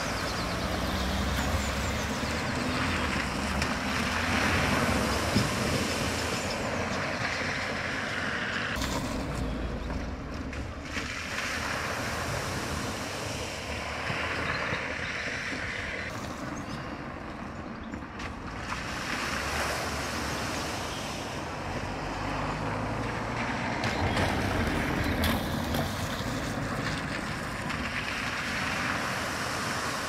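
Cars driving through a flooded ford, their tyres throwing up sheets of spray over a low engine sound and wind on the microphone. The splashing swells several times, and the sound changes abruptly between crossings.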